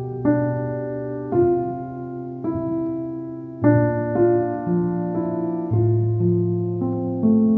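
Background piano music: soft notes and chords struck about once a second and left to ring out.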